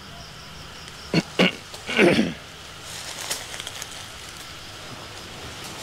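Footsteps and brush movement in dry leaf litter and twigs: two sharp snaps just after a second in, a louder crunch about two seconds in, then lighter crackles.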